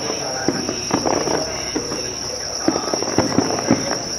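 A night insect chorus trills steadily, high and unbroken. Over it come frequent, irregular sharp crackling pops from an aerial fireworks display.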